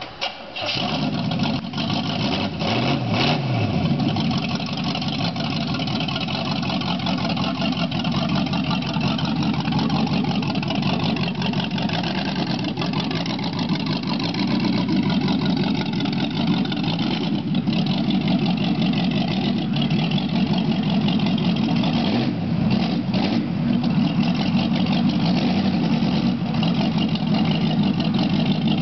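Vintage hot-rod pickup's engine catching just after the start and blipped a few times in the first few seconds, then running steadily at low revs as the truck moves off.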